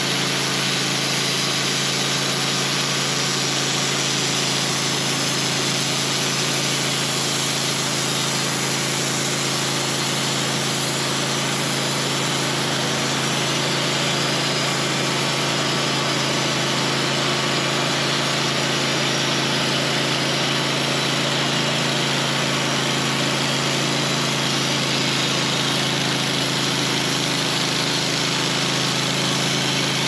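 Portable bandsaw sawmill's gasoline engine running steadily at idle, one even unchanging hum.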